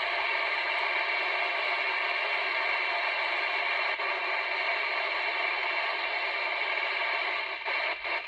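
CB radio receiver on the 11-metre band hissing with steady static through its speaker, with no voice coming through; a weak calling station is too faint to copy.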